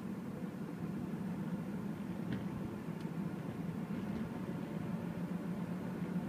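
Steady low hum of engine and road noise inside a slowly moving car's cabin.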